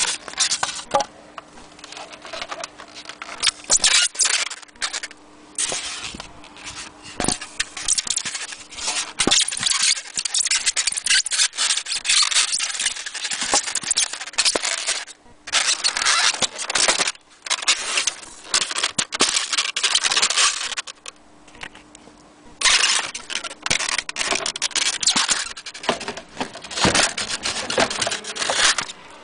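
Polystyrene foam packing inserts and a cardboard box being handled and rubbed together: an irregular run of loud scraping and rustling, broken by a few short pauses.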